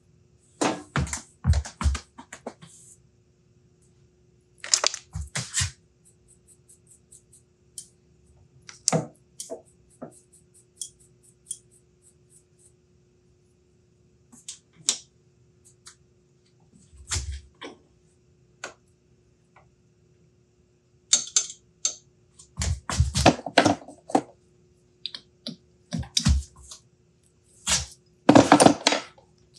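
Metal tools and parts handled at a metal lathe: scattered clinks, knocks and short scrapes, with a quick run of light ticks about ten seconds in and a cluster of louder knocks near the end, over a faint steady hum.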